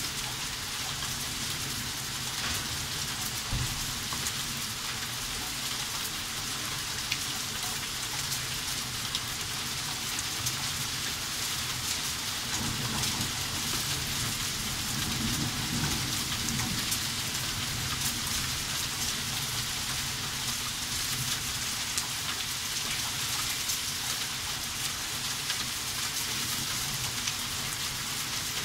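Heavy rain and hail pelting a garden: a dense, steady hiss full of small ticks of impacts. A low rumble rises and fades about halfway through.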